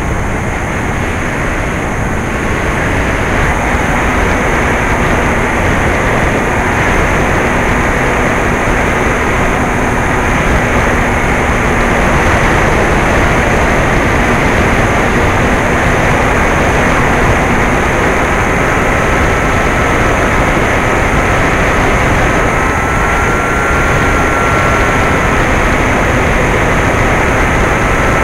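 Steady air rush over an onboard camera and the whine of a Bixler 2's brushless electric motor (NTM 35-30A, 1400 kV) turning a 9x6 propeller in flight. The faint motor tone creeps a little higher about two-thirds of the way through.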